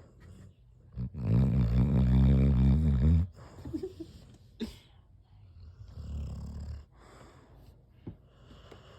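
Overweight dog snoring: one loud snore lasting about two seconds, starting about a second in, then a much quieter, lower snore about five seconds later.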